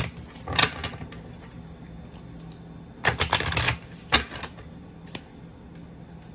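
A deck of oracle cards being shuffled by hand, the cards clattering in quick flurries: a short one about half a second in, a longer one about three seconds in, then a couple of brief flicks.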